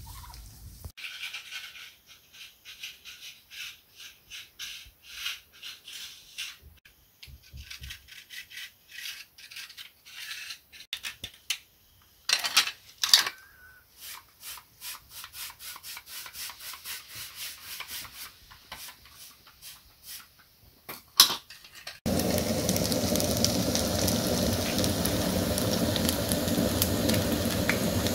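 Rhythmic scraping or rubbing strokes, about two a second, with a few louder sharp knocks past the middle. Near the end the sound changes abruptly to a steady, even rain-like hiss.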